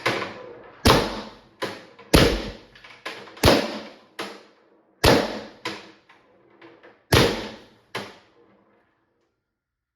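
Valken M17 marker firing on compressed air, a string of about a dozen sharp shots at an uneven pace, loud reports mixed with quieter ones, each dying away briefly in the room. The shooting stops about eight and a half seconds in. The rounds are fed through a 3D-printed feed head, which cycles them.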